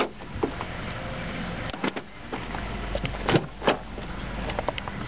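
Ford Focus car doors being handled and opened: several sharp clicks and knocks from the latches and handles, the loudest pair about three and a half seconds in, over a low steady rumble.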